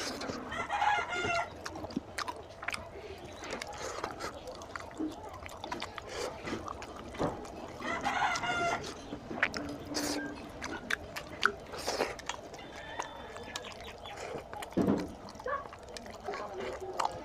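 Hand-eating sounds: fingers squelching through curry-soaked mutton head and rice on a plate, with short wet clicks of chewing and handling. A rooster crows twice in the background, about a second in and again about eight seconds in.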